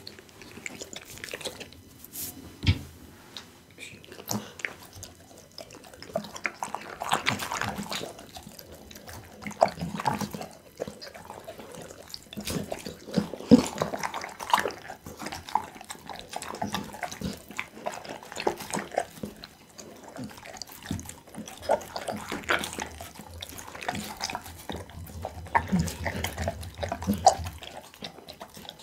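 Pit bull eating raw meat close to a microphone: irregular wet chewing, smacking and licking sounds.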